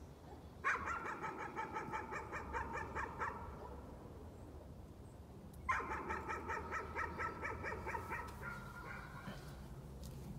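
A dog barking in two long runs of rapid, high yaps, about six a second. Each run lasts around three seconds, with a pause of a couple of seconds between them: persistent nuisance barking.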